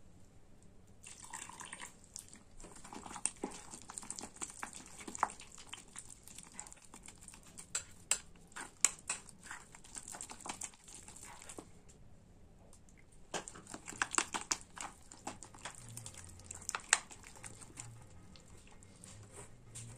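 Water poured briefly from a jug into a glass bowl, then a metal spoon stirring wet wheat-flour batter, clicking and scraping against the glass bowl in two spells with a short pause between.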